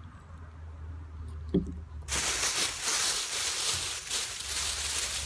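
A thump, then about two seconds in a plastic carrier bag starts rustling and crinkling steadily as a takeaway is unpacked from it.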